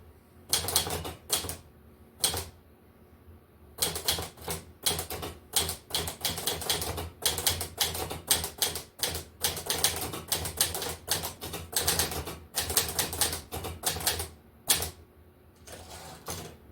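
Underwood 378 manual typewriter with an Olivetti body being typed on: quick, irregular clacks of keys striking, with a short pause about three seconds in. The strikes thin out near the end.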